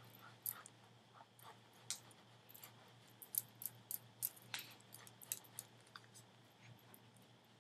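Large powder brush sweeping and tapping setting powder onto the face, heard as faint scattered clicks and soft taps, over a steady low electrical hum.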